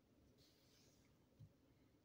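Near silence: room tone, with a faint rustle about half a second in and one soft low thump near the end.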